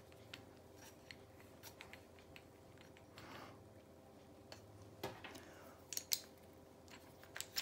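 Faint, scattered metallic clicks and taps from a metal manual wire stripper being handled, a few sharper ones about five and six seconds in.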